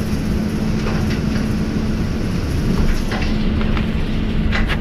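Cabin of a moving road vehicle driving on a snowy street: steady engine and road rumble with a constant low hum. Light rattles come about a second in and around three seconds in, with a quick cluster of them near the end.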